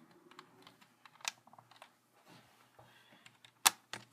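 Scattered clicks and taps of a replacement laptop keyboard being pressed down into its seat, with a sharp louder snap near the end.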